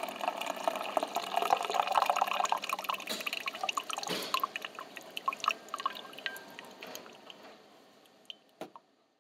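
Coffee machine brewing: liquid gurgling and dripping over a steady tone, fading away over the last few seconds, then two light clicks near the end.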